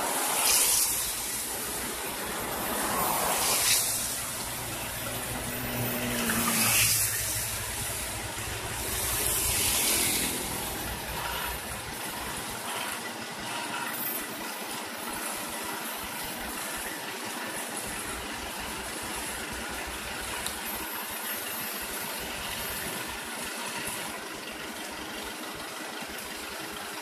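Asphalt paver and dump truck engines running steadily while paving a road. Four loud hissing bursts come about three seconds apart in the first ten seconds.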